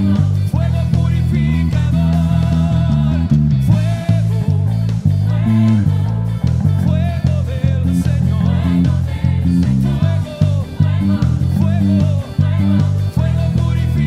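Five-string Fender American Elite Jazz Bass playing a busy, syncopated bass line with a full band recording. The bass notes change quickly under the band.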